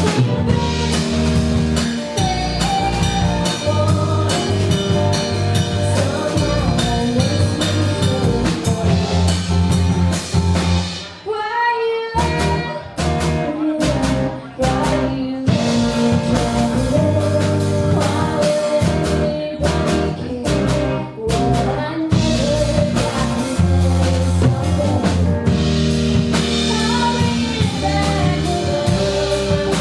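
Live rock band playing: drum kit, electric guitar and bass. About eleven seconds in, the band drops out briefly under a sliding guitar line, then comes back in.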